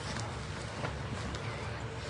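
Light clicks and rustling of hands handling a newborn puppy, over a steady low hum.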